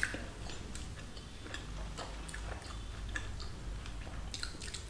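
People chewing food close to the microphone: soft, wet chewing with scattered small clicks.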